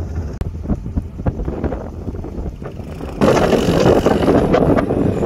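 ATV engines running as a quad drives through shallow river water and climbs onto a snowy bank, with a steady low rumble and scattered knocks. About three seconds in, a much louder rushing noise sets in abruptly.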